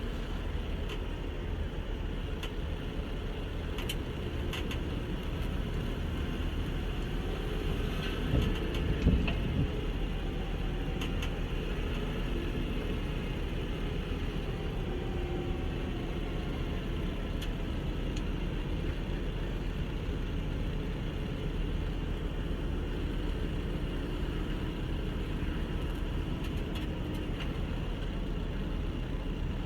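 Nissan GT-R engine running steadily, with a brief louder swell about eight seconds in.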